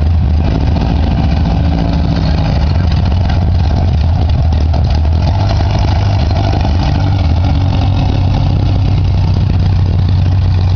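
A vehicle engine idling steadily and loud, holding an even pitch with no revving.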